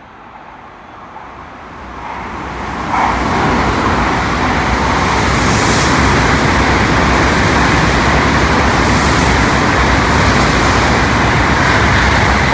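Tokaido Shinkansen bullet train passing through the station at speed without stopping: a rushing noise of wheels on rail and air that builds over the first three seconds, stays loud and steady for about nine seconds while the train runs by, and starts to fade at the end.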